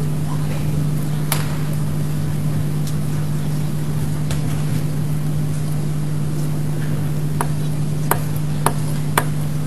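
Table tennis ball clicking off bat and table: a few single strikes, then a quick exchange of sharp clicks about half a second apart near the end, over a steady low hum.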